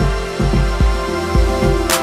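Background music with a steady beat and held bass notes, and a brief swish near the end.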